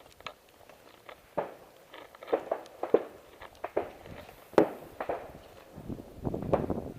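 A hiker's footsteps climbing the trail: uneven thuds and scuffs, one every half second to a second.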